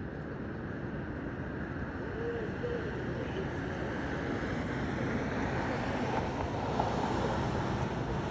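Steady city street noise with traffic, growing gradually louder.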